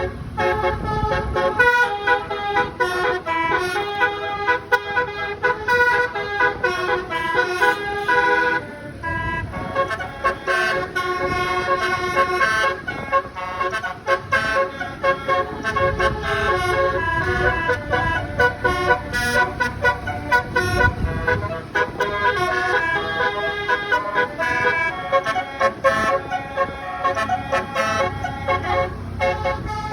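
Basuri telolet horn on a bus, a set of multi-tone air horns, playing a quick tune of changing notes with no pause. A low rumble sits beneath the notes partway through.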